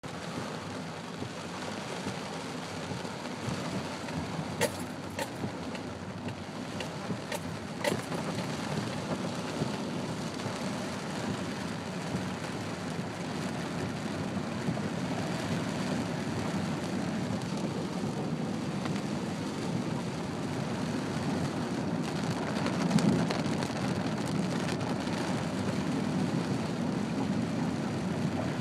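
Heavy rain pelting a car's roof and windshield, heard from inside the cabin, with the steady hiss of the car's tyres running through standing floodwater. A few sharp taps come between about four and eight seconds in, and a louder surge of water noise comes near the end.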